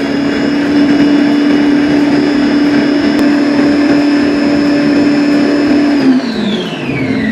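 Electric food processor motor running loud and steady as it blends powdered Oreo biscuits and milk into a creamy batter. About six seconds in it is switched off and its whine falls in pitch as the motor winds down.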